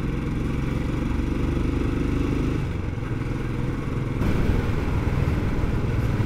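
Motorcycle engine running steadily while riding, carrying three people, heard with wind noise on a helmet-mounted microphone. The wind hiss grows about four seconds in.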